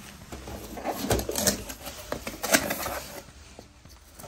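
Cardboard boxes and packing being handled and opened: rustling, with a few short knocks.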